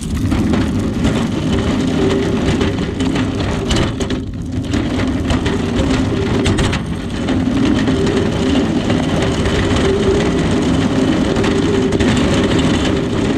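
Vehicle on the move: steady engine and road noise with a droning low hum, starting suddenly.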